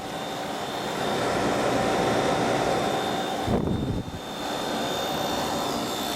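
Samsung 5,000 BTU window air conditioner running on high cool: a steady rush of blown air with a faint whine over it, its rotary compressor running quietly. A brief low rumble about halfway through.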